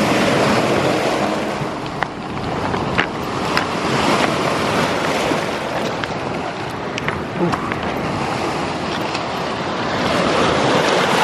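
Lake waves breaking and washing over a pebble shore, with wind buffeting the microphone. A few short, sharp clicks sound through the middle.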